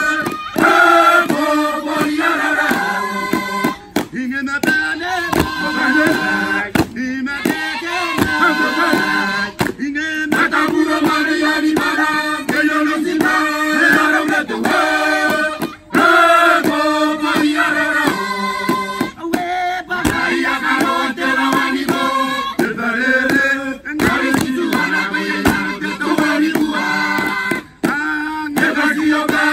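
Traditional Kiribati dance song: a seated chorus of men and women singing together in phrases, with short breaks between them.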